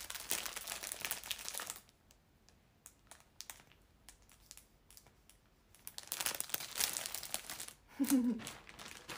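Plastic shopping bag and plastic-wrapped T-shirt crinkling as they are handled, in two spells with a quiet pause of about four seconds between.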